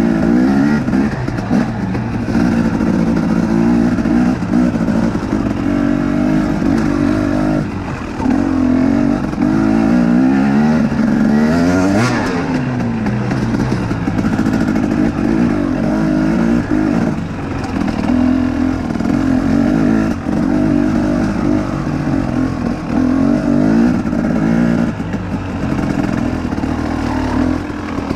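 2019 KTM 250XC two-stroke dirt bike engine revving up and down repeatedly as the bike is ridden through tight trail turns, its pitch rising and falling every second or two. A short sharp noise cuts through about twelve seconds in.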